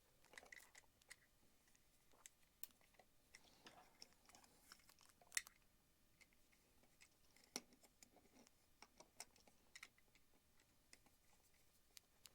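Near silence with scattered faint clicks and taps: a small screwdriver and wires being handled while terminating a light switch.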